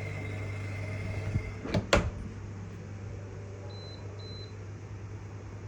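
Two sharp clicks about two seconds in, then two short high beeps from the appliance's control panel, over a steady low hum. The beeps come as the machine refuses to start its program: the fault noise it keeps making instead of starting.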